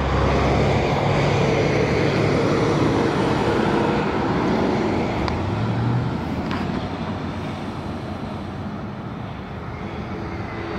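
Highway traffic passing close by, with heavy trucks driving past; the tyre and engine noise is loudest for the first six seconds and then eases off.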